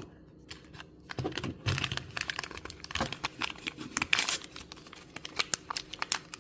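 Crinkling and tearing of small toy packaging being unwrapped by hand: a dense run of quick, sharp crackles.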